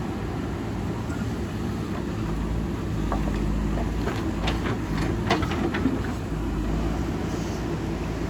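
JCB backhoe loader's diesel engine running steadily under work, with a run of sharp clanks and knocks between about three and six seconds in.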